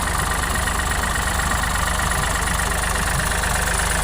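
Vehicle engine idling steadily with an even, rapid low beat.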